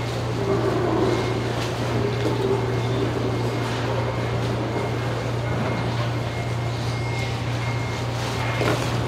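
Steady low machine hum over constant background noise of a working fish market hall. The knife slicing through the fish loin is not distinct above it.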